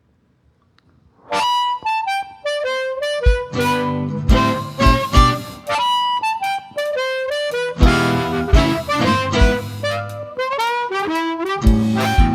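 Blues harmonica playing a melody of bent, wailing notes over a band with bass and kick drum. It comes in suddenly about a second in, after near silence.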